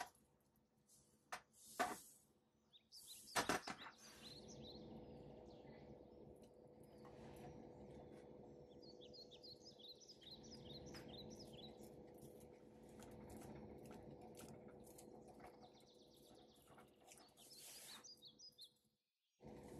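Faint kitchen background: two sharp knocks within the first four seconds, then a steady low hum with faint short bird chirps over it.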